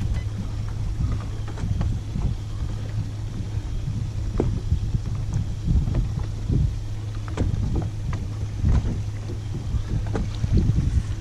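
Wind buffeting the microphone and small lake waves lapping against a boat hull, over a steady low hum, with occasional light taps.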